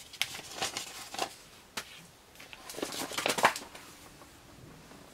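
Cards and papers being handled: a run of crinkly rustles and light clicks, busiest about three seconds in.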